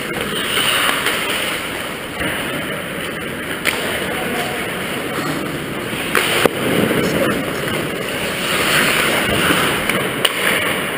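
Ice skate blades scraping and carving on the ice close to the goal, over the rink's steady rumble, with a few sharp clicks and knocks, the loudest about six and a half seconds in.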